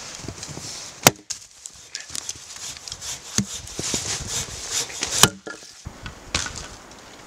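Axe splitting firewood: two loud, sharp chops, about a second in and just past five seconds, with smaller knocks and wood rustling in between.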